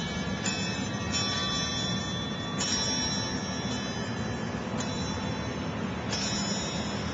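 Metal tube wind chimes knocked by the wind, ringing in about five clusters of high, overlapping tones that each fade slowly, over a steady rush of wind.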